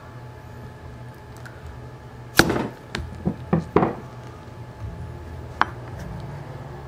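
Mallet striking a multi-prong stitching chisel to punch stitching holes through leather: one loud knock about two and a half seconds in, then three lighter knocks close together about a second later. A single sharp click comes near the end, over a steady low hum.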